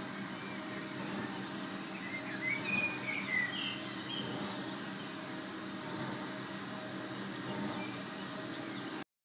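Small songbirds chirping in short bursts of high chirps over a steady low background hum; the sound cuts off suddenly just before the end.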